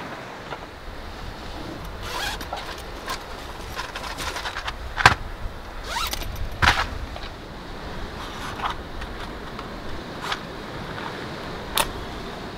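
Scattered knocks, scrapes and rustles of gear being handled in the back of a Jeep, the loudest knock about five seconds in. A short sharp scrape near the end, as a match is struck to light match-lit charcoal. All of it sits over a steady hiss of wind and water.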